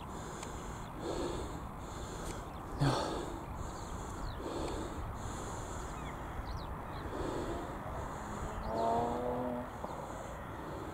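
A man breathing hard, in and out about once a second, over a steady rustle of wind on the microphone, with one sharper gasp about three seconds in and a short held vocal call near the end.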